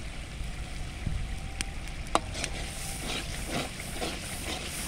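Wood fire burning under a large iron karahi of steaming food: a steady low rumble with scattered crackles and one sharp click about two seconds in. In the second half a metal ladle stirs the pot, giving a quick run of irregular scraping and sizzling strokes.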